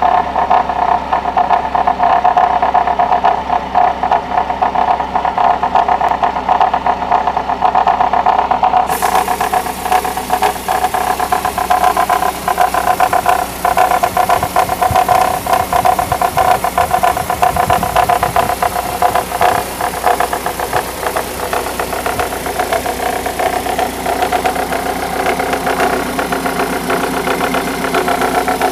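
Mercedes-Benz W210 E200's four-cylinder engine running at a steady speed, with a fast ticking, rattling noise running through it.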